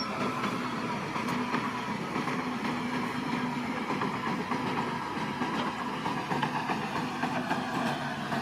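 Crawler bulldozer running: a steady engine drone with a continuous rattle of small clicks and clanks.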